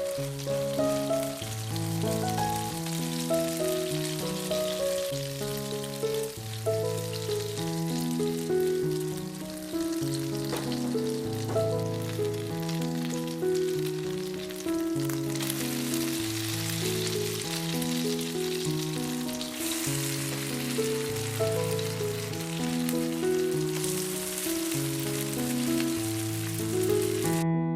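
Food sizzling as it fries in oil in a pan, under background music of short melodic notes. The sizzle grows louder a couple of times and cuts off abruptly just before the end.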